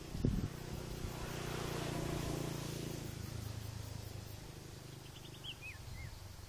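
A brief thump, then the drone of a model seaplane's motor and propeller flying overhead, swelling about two seconds in and slowly fading. A bird gives a few short chirps near the end.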